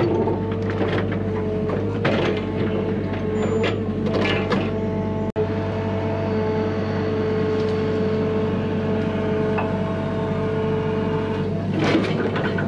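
Hyundai HX85A excavator running steadily with a constant engine hum, while its bucket scrapes and knocks against rock several times, mostly in the first five seconds and again near the end. The sound cuts out for an instant about five seconds in.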